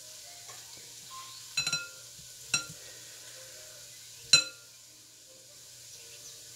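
A spoon clinking against the rim of a glass mixing bowl three times as roasted acorn squash flesh is scraped off into it; each strike rings briefly, the first a quick rattle of knocks and the last, about four seconds in, the loudest.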